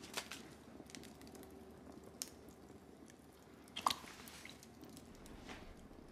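Quiet soup-eating sounds at a table: a sharp click of a spoon on a china bowl about two seconds in, then a short slurp as soup is sipped from a spoon a little past halfway.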